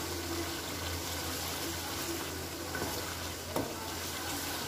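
Beef karahi sizzling steadily in a wok, frying in its own oil now that the water has cooked off, with a couple of light clicks of a spatula against the pan.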